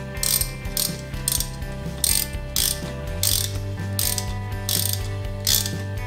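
Small hand ratchet clicking in quick back-and-forth strokes, about two strokes a second, tightening the nut on a new outside-install valve stem in a wheel rim. A steady low hum runs underneath and shifts in pitch about three seconds in.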